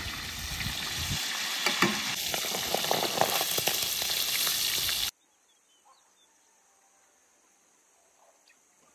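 Breaded chicken deep-frying in hot oil: a loud, dense sizzle full of crackles and pops that cuts off suddenly about five seconds in. After it there is only faint outdoor quiet with a few small chirps.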